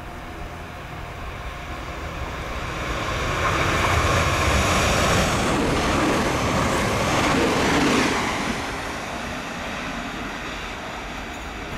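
Class 365 electric multiple unit passing close at speed: a rush of wheels on rail and air that swells as the train approaches, is loudest for about four seconds as it goes by, then fades.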